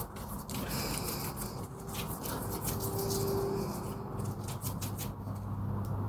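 Metal clicks and scrapes of a brake pad and its clips being handled and slid into a disc brake caliper bracket. A low steady hum grows stronger from about four seconds in.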